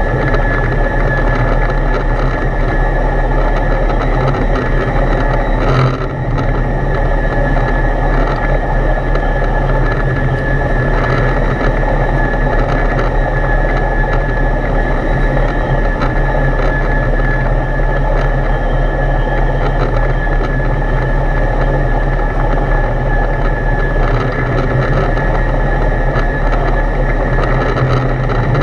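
Foxbat A22LS light aircraft's Rotax 912 flat-four engine and propeller droning steadily in flight, heard inside the cockpit with air rushing past. A thin steady high whine sits above the engine note, and the sound dips briefly about six seconds in.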